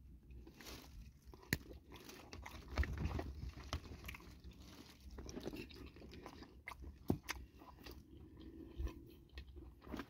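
A person biting and chewing a piece of chicken neck from soup, crunching on the small neck bones: faint, scattered crunches and clicks.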